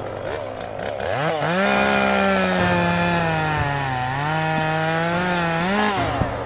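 Chainsaw revving up about a second in and running at high speed, its pitch dipping briefly in the middle, then cutting off near the end.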